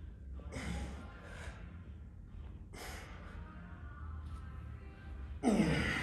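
A person breathing hard, with several heavy, hissing exhales over a steady low hum, and a louder burst near the end.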